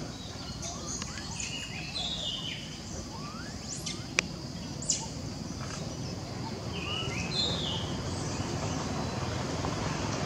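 Outdoor background noise with repeated short, high whistled bird calls that step down in pitch, and two sharp chirps about four and five seconds in.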